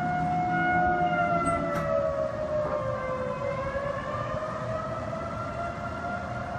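Outdoor warning siren sounding over the city, one long wailing tone whose pitch slides down and then climbs back up.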